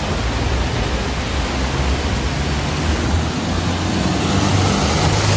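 Shallow river rushing over rocks, with the low rumble of a 4x4's engine as it drives through the water, growing a little stronger in the second half.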